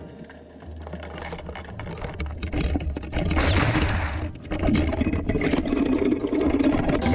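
Underwater camera audio: a steady muffled rumble, getting louder about three seconds in, with a burst of hissing noise just after.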